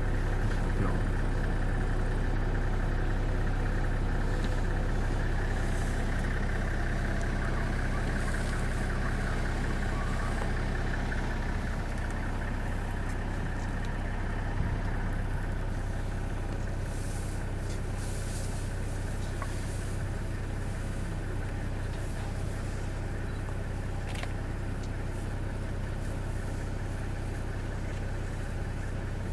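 Vehicle engine idling steadily, a low even hum that drops slightly about twelve seconds in.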